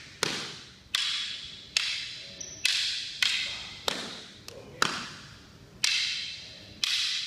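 Rattan fighting sticks clacking together in sparring: about ten sharp wooden cracks at uneven intervals, each ringing out in the echo of a large gym hall.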